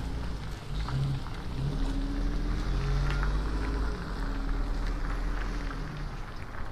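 Wind buffeting the microphone while riding an electric bike: a steady low rumble with a hissy haze above it.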